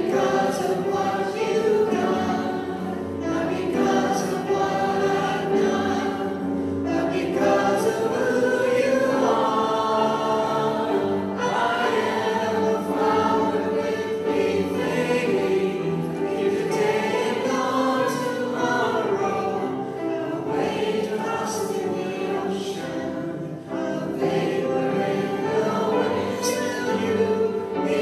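A man and a woman singing a contemporary Christian worship song with instrumental accompaniment.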